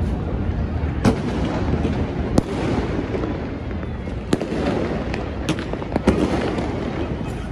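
Many fireworks and firecrackers going off across a city at once: a continuous low rumble of distant bursts, broken by sharp cracks about once a second, the loudest about two and a half and six seconds in.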